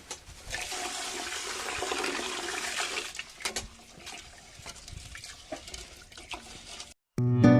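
Water pouring and splashing for about three seconds, followed by a few light knocks and clicks. Acoustic guitar music starts just before the end.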